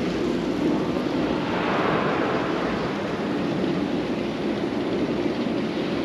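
Steady rush of wind on the microphone, with a low rumble underneath.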